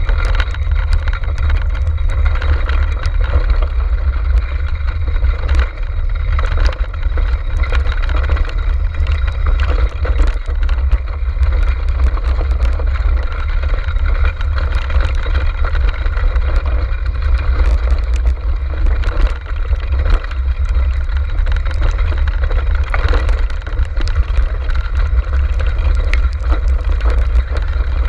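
Wind buffeting the microphone of a camera riding on a dog-drawn racing kart, over the steady rumble of the kart's wheels rolling along a muddy dirt trail. Scattered small ticks run through it, from grit and mud spatter striking the camera.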